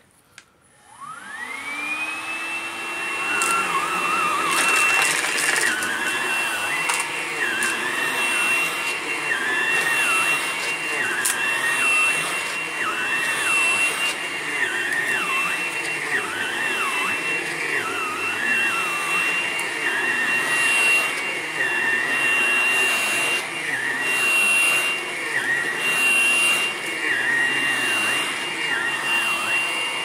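Hoover Blade+ cordless stick vacuum switching on about a second in, its motor whine rising quickly to a steady high pitch. It then runs on carpet, with a lower tone wavering up and down beneath the whine as it is pushed back and forth.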